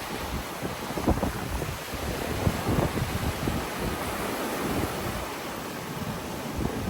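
Ocean surf washing onto a beach, a steady hiss of breaking waves, with wind gusting against the microphone in low rumbles.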